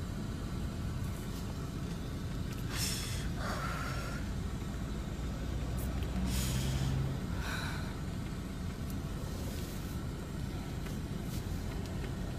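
A woman crying without words: several wet sniffs and sharp, shaky in-breaths a second or two apart, over a steady low hum.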